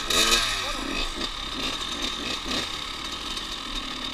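Small two-stroke Kawasaki KX dirt bike engines running, with a steady high whine.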